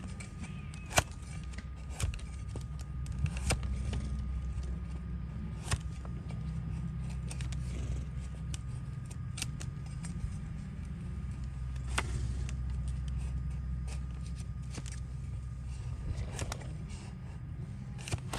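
Donkey hoof horn being pared with a wide, flat hoof-trimming blade pressed down against a wooden block: irregularly spaced, sharp, crisp cuts, a few louder than the rest, over a steady low rumble.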